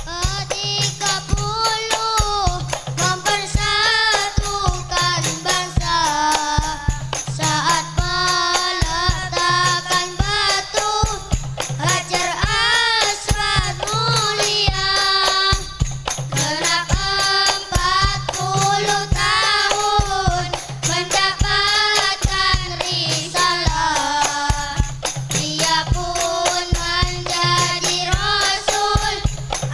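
Devotional song, a voice singing a wavering melody over steady hand-percussion strokes and a low repeating bass pattern.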